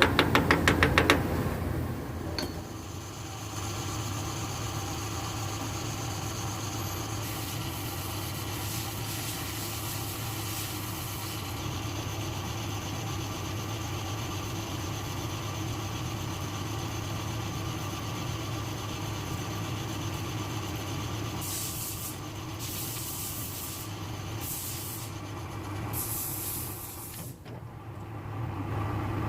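Lathe running with a steady hum, with a fast run of loud clicks in the first second or so and stretches of hiss partway through and again near the end.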